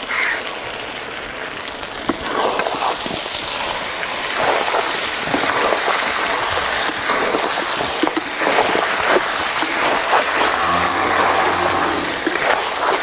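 Chicken pieces frying in oil in a metal kadhai with garlic paste, sizzling as a ladle stirs them, the ladle scraping and knocking against the pan. The sizzle gets louder about two seconds in.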